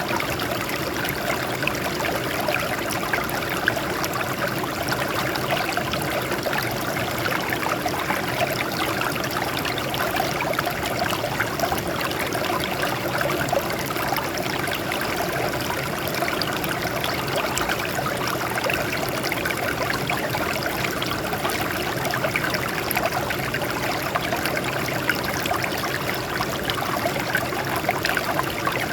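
Water flowing steadily over rocks, a continuous babbling of small splashes and trickles.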